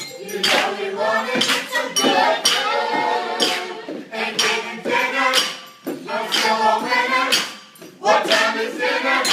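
A group of voices singing a comic pop song together, accompanied by sharp taps and clinks at a steady beat from kitchenware used as percussion: plastic cups, bowls, glasses and plates.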